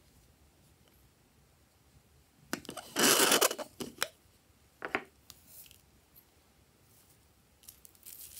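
Small plastic bottle being opened and handled: a few sharp plastic clicks and a brief loud rustle about three seconds in, then a couple of softer clicks, with faint rustling of confetti near the end.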